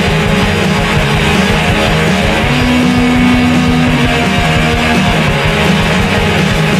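Loud rock song with guitar, playing steadily with no break.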